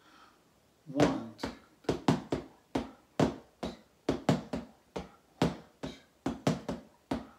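Two wooden drumsticks striking a fabric-covered surface in a 5-against-2 polyrhythm: the right hand plays five even strokes against two from the left, about three to four strokes a second in all, starting about a second in.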